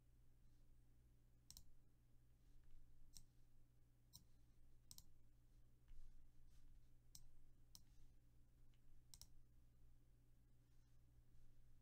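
Faint, sharp clicks at irregular intervals, roughly one every second or so, over a steady low hum; otherwise near silence.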